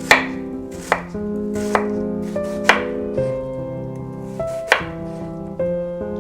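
A knife cutting food on a cutting board in slow single strokes, about one a second, over background piano music.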